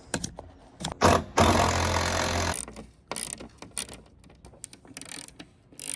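A small power tool, such as a driver, runs for about a second on the Jeep TJ liftgate hinge hardware with a steady whir, just after a sharp clack. Scattered metallic clicks and taps of hand tools follow.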